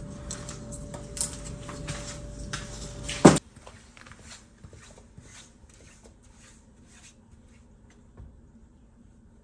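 Wooden boards being handled on a workbench: scattered knocks and taps over a steady hum, ending in one loud knock about three seconds in. After that comes a much quieter stretch of faint footsteps crunching on snow and ice.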